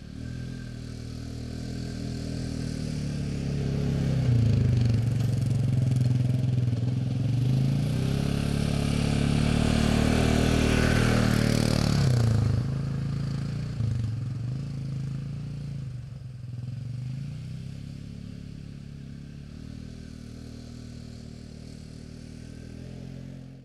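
A Polaris Sportsman 450 H.O. ATV's single-cylinder engine riding past on a sandy trail. Its pitch rises and dips repeatedly with the throttle. It grows louder toward a peak in the middle, drops off suddenly a little after halfway, then fades steadily as the quad rides away.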